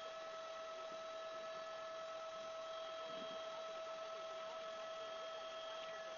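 A faint, steady hum with a few higher overtones over a low hiss, unchanging throughout.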